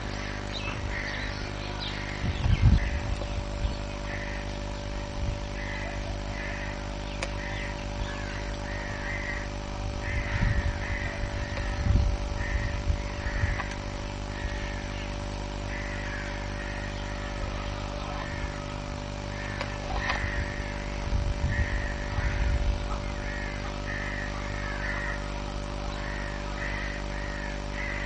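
Outdoor ambience: a steady low hum with a bird calling over and over, a short call about once a second. A few gusts of wind rumble on the microphone.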